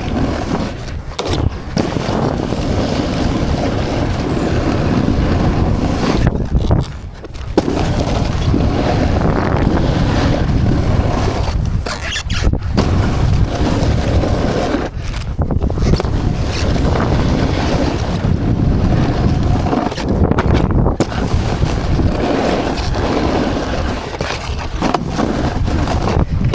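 Wind rushing over a helmet-mounted camera's microphone, with the rumble of sliding fast on snow down a ski slope. The noise cuts out briefly several times.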